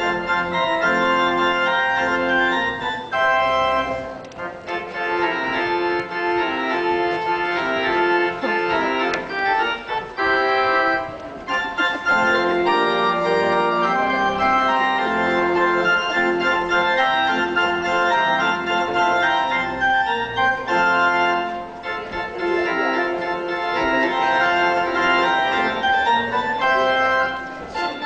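Organ music playing held chords under a melody, with a few brief dips between phrases.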